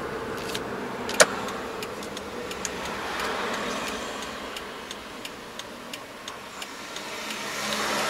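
Car cabin with steady engine and road noise. One sharp click about a second in, then a turn-signal relay ticking evenly, about three ticks a second, as the car waits to turn at an intersection.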